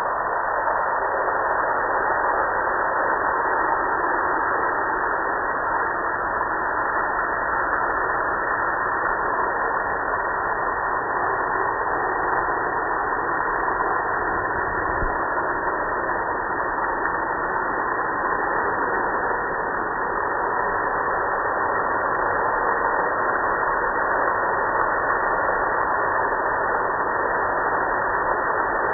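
Steady rushing hiss of water spraying onto a gas grill, starting abruptly.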